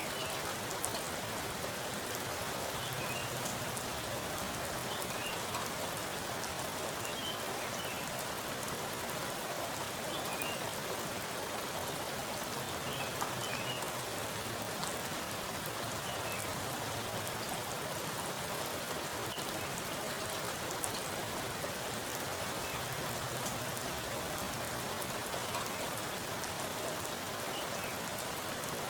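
Heavy rain falling onto a pool of water: a steady, even rush of rain with many separate drop hits on the water surface.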